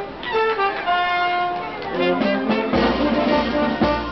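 A street band playing a march-like tune on trumpets and trombones, a held melody at first, then fuller chords. Drums come in a little over halfway through, with regular beats.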